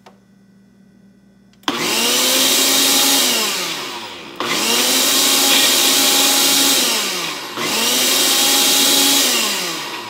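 Ninja cup blender's motor run in three pulses of about three seconds each, starting about two seconds in. Each pulse spins up and winds down as the blender grinds a chunky tomato and red pepper sauce.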